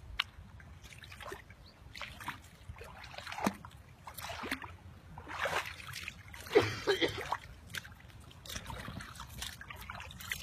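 Shallow lake water splashing and sloshing in irregular bursts as a large carp is handled in a net by men standing in the water, with the loudest splash about six and a half seconds in.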